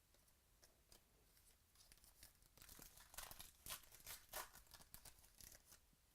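Faint tearing and crinkling of a trading-card pack wrapper being opened by hand, a quick run of crackles that is densest about halfway in.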